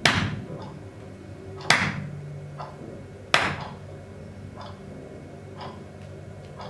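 Three sharp, loud hand claps picked up by the microphone and played through the PA, about 1.7 seconds apart, each ringing out in the room. A few faint small clicks follow.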